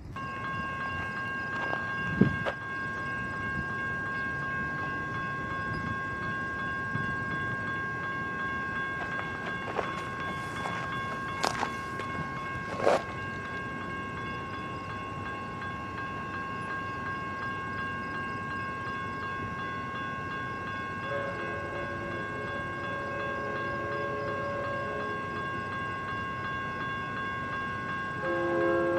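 Grade-crossing warning bell ringing steadily, with a few sharp knocks in the first half. An approaching Amtrak train's horn comes in faintly about two-thirds of the way through and grows louder near the end.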